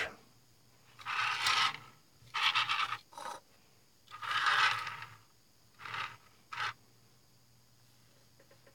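Old paintbrush scrubbing thinned paint across the plastic body of an HO-scale flat car model in six scratchy strokes. The first four last up to about a second; the last two, around six seconds in, are short.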